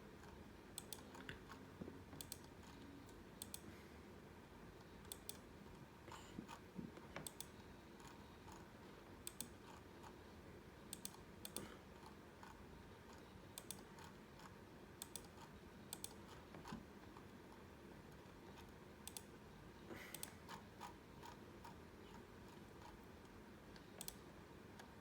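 Faint, irregular clicking at a computer, often in ones or pairs every second or two, over near-silent room tone.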